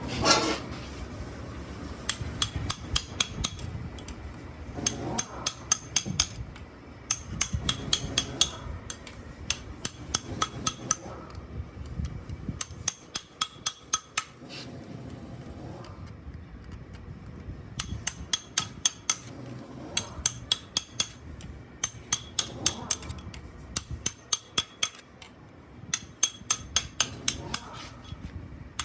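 Light, quick hammer taps on metal, several strokes a second, in runs of a second or two with short pauses between them.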